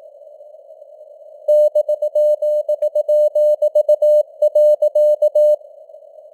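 Morse code sent at 18 words per minute as a single keyed tone over narrow simulated radio static. The static alone for the first second and a half, then about four seconds of dots and dashes, then static again.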